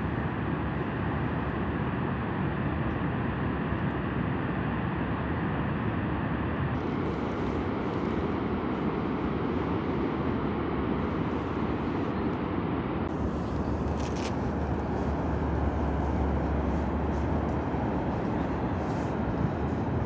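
Niagara Falls rushing: a steady, dense wash of falling water, with a deeper low rumble rising under it for a few seconds past the middle.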